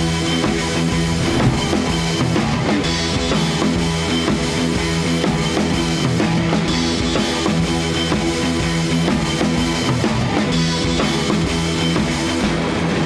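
Background rock music with drums and guitar, playing at a steady level.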